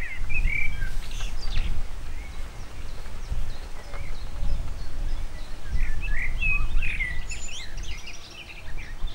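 Small songbirds chirping in short scattered calls, over a low rumble of background noise.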